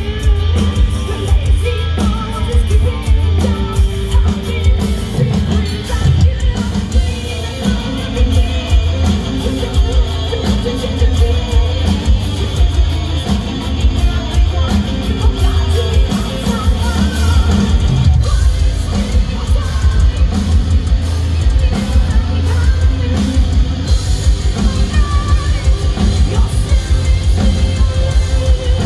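Live heavy metal band playing through a festival PA: electric guitars, drum kit with a pounding kick drum, and a female singer.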